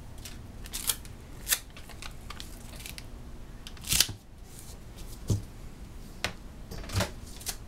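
Scattered crisp rustles and taps of paper and Tyvek tape being handled and pressed down by hand, as squares of tape are laid onto a paper kite pocket; the loudest tap comes about four seconds in.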